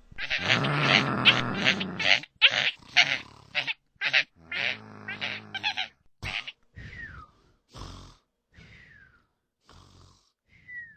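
Cartoon character voices making wordless grunts and squeals in a rapid run of short bursts, growing fainter, with a couple of falling squeaks near the end.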